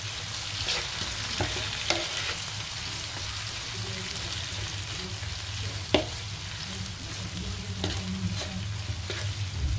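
Onions, garlic and bird's-eye chillies sizzling in hot oil in a wok, stirred and scraped with a wooden spatula: aromatics being sautéed until fragrant. A few knocks of the spatula on the pan punctuate the steady sizzle, the sharpest about six seconds in.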